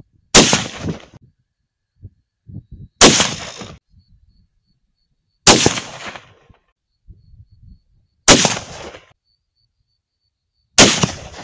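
Five .308 Winchester rifle shots, about two and a half seconds apart, each a sharp crack with a short fading tail. Faint knocks sound between some of the shots.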